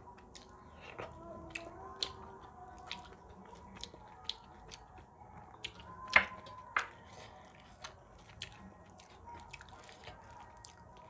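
Close-up wet eating sounds of a man eating rice and spicy potato curry by hand: sticky clicks and lip smacks while chewing, with soft squelching as his fingers mix the rice and curry. Two louder clicks come about six seconds in.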